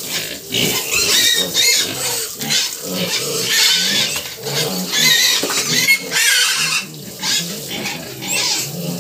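A group of piglets squealing, shrill squeals following each other every half second or so and overlapping, with lower grunting between them.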